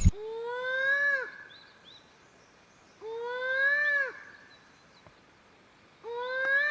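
A bird giving three long calls about three seconds apart, each lasting about a second: a full, pitched tone that rises slightly, then drops off sharply at the end.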